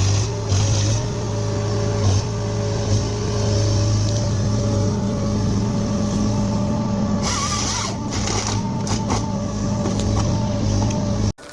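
Heavy forestry harvester's engine running steadily, with a few short hissing bursts over the drone. It cuts off abruptly near the end.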